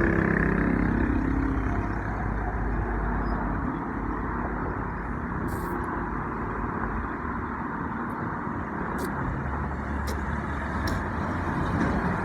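Steady low rumbling noise, like a vehicle running, with a few faint short clicks.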